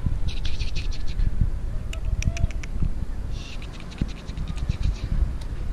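Wind rumbling on the microphone, with several runs of quick, sharp clicking scratches.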